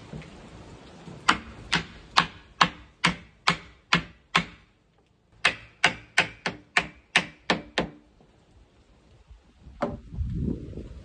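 Hammer blows, as when driving nails: two quick runs of about eight sharp strikes each, a little over two a second, with a short pause between. Near the end comes a single strike, followed by a low rumbling thud.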